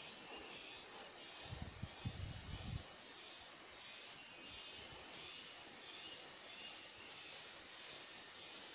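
Insects shrilling steadily in a high, even whine, with a higher chirp pulsing about twice a second. About a second and a half in, a low scuffing lasts just over a second as a hand rubs inside a hollow bamboo nest box.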